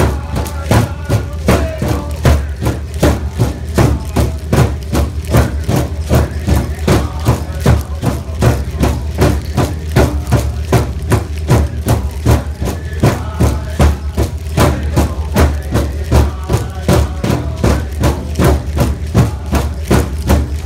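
A seated circle of players beating one large drum in a steady rhythm, about three beats a second, with voices singing over it in stretches. A low steady engine hum runs underneath.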